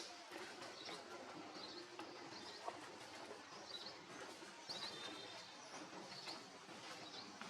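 Faint outdoor ambience with small birds chirping: short high chirps repeating roughly once a second.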